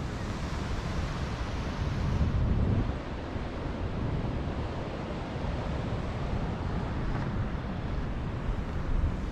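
Sea wind buffeting the microphone with a low rumble over a steady wash of surf, with a stronger gust about two to three seconds in.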